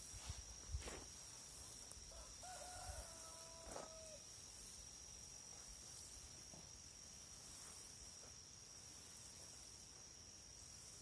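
A rooster crows faintly once, a level call of about two seconds starting a little over two seconds in. Under it is the soft hiss of water from a watering can's rose sprinkling onto garden soil.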